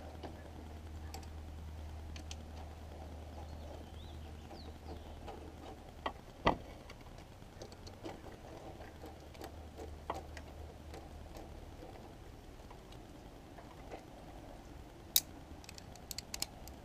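Faint scattered clicks and taps of a new idle air control valve and its bolts being fitted by hand onto a throttle body, with a sharper click about six seconds in and a quick run of clicks near the end. A faint low hum lies under it for the first twelve seconds or so.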